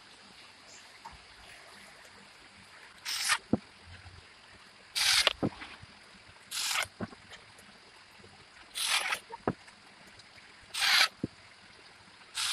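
Plastic parts of an electric toy bicycle being handled and fitted during assembly: six short scraping rasps about two seconds apart, most followed by a sharp click or two.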